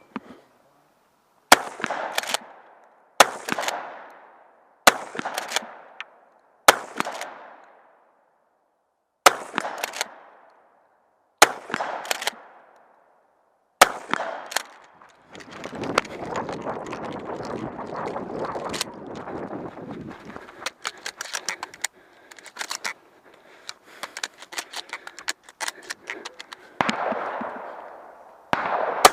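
Shotgun firing slugs: seven single shots about two seconds apart, each with a ringing tail, then a stretch of rustling and rapid clicking and rattling, and another shot near the end.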